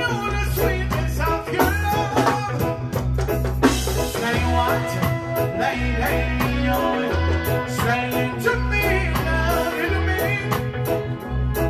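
A male singer sings into a microphone over reggae backing music with a heavy, pulsing bass line and drums.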